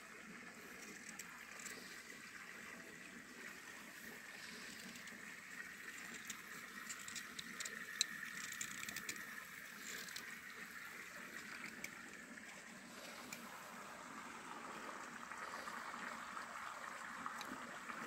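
A stream running over stones, a steady gentle rush, with light clicks and scrapes of a knife carving olive wood, the sharpest about eight seconds in.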